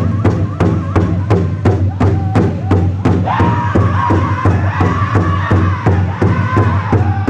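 Powwow drum group singing a jingle dress song around one large shared drum: a steady drumbeat of about three strokes a second under high-pitched group singing. The singing gets louder and higher a little after three seconds in.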